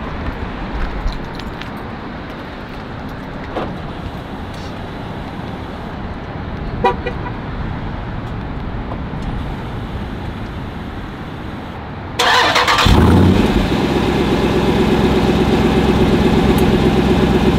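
Jeep Grand Cherokee SRT's 6.4-litre HEMI V8 being started warm, not cold, about twelve seconds in: a short crank, then it fires with a flare and settles into a steady idle. It runs through the reinstalled factory mid and rear mufflers, without the growl and bark it had when straight-piped. Before the start there is only a steady low background hiss.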